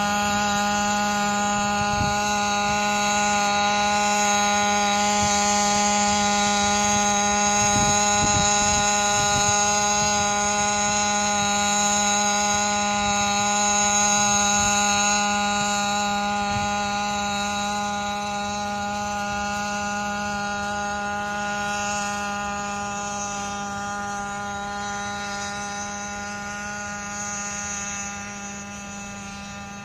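eirobotix D130 X4 hybrid quadcopter, internal-combustion and electric, flying: a steady hum that holds one pitch throughout. It fades gradually over the second half as the craft moves away.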